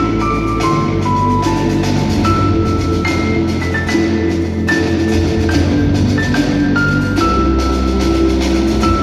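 Live ensemble music with percussion: a melody stepping from one held note to the next over sustained low notes, with frequent percussion strikes throughout.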